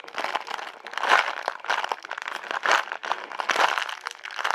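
Crinkling and rustling from handling a squishy toy and its wrapping, in irregular bursts, loudest about a second in and again near three seconds.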